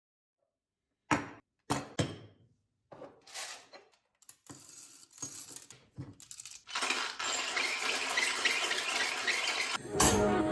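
A few sharp metallic clinks and knocks, followed by a dense, steady clatter; music starts just before the end.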